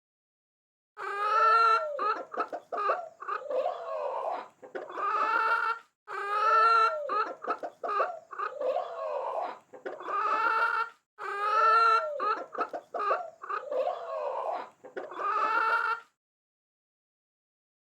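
A chicken clucking and calling: the same short sequence of a drawn-out call, a quick run of clucks and another call is heard three times over, then stops.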